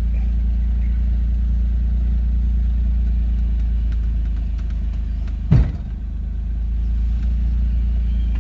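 Suzuki Jimny's engine running steadily, with one sharp clunk a little over halfway through: the "gakkun" clunk that comes when the steering wheel is turned, a strange noise the owner cannot identify.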